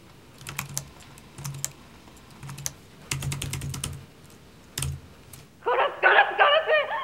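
Computer keyboard tapped in short bursts of keystrokes, five clusters in the first five seconds. About two-thirds of the way in a woman's loud crying voice takes over and is the loudest sound.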